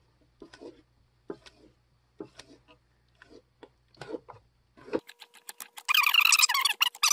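A spatula scraping and knocking around the inside of a stainless steel stand-mixer bowl in short, irregular strokes. About a second from the end, a louder run of squeaking starts.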